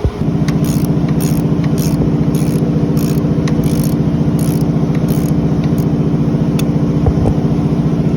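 A motor or engine starts abruptly and runs with a steady, even hum and a fast pulsing beat. Faint light clicks come about twice a second over its first few seconds.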